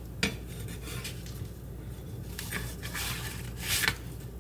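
Metal spatula scraping and tapping against a wooden cutting board and a plate as quesadilla wedges are slid across: a sharp click about a quarter second in, then louder scrapes near the end.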